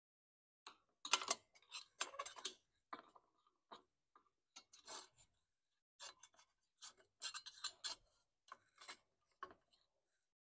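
Irregular short scrapes, rubs and light clicks of plastic and metal parts being handled and fitted at a small mower engine's air filter housing and carburetor.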